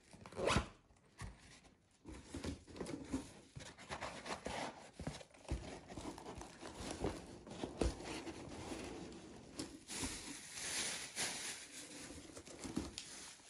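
Fabric storage boxes being handled and fitted into one another: irregular rustling and crinkling with small knocks.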